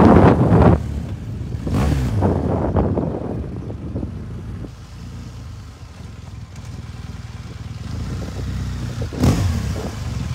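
Motorcycle engine running at low speed as the bike is ridden slowly, a steady low engine note. Wind buffets the microphone in the first second.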